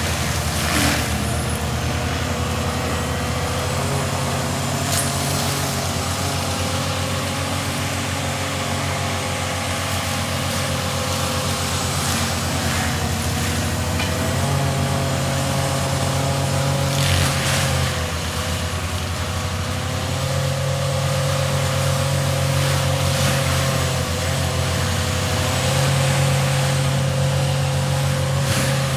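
Skid steer's diesel engine and forestry mulcher head running steadily under load, with a held whine that sags and recovers slightly, and a few brief noisy bursts.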